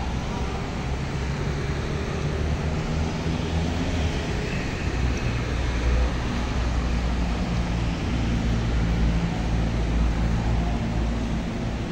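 Road traffic: motorcycle and car engines running as they drive past, over a steady low rumble.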